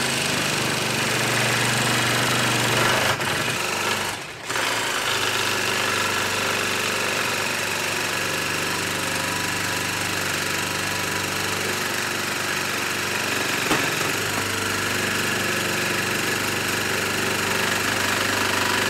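Old-style Ryobi cordless jigsaw cutting slowly through a wooden board with its orbital action on, the blade running steadily with a brief break about four seconds in. The cut is so hard going that its 1.5 Ah battery drains to nothing, though the motor itself is fine.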